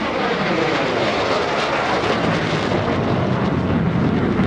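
MiG-17PF jet fighter's turbojet passing at full power, its whine falling in pitch as it goes by, then a loud steady rumble as it climbs away with the afterburner lit.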